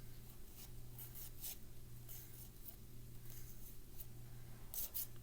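Faint rustling and light scratchy ticks of tarot cards being handled and slid, a few sharper ones near the end, over a low steady hum.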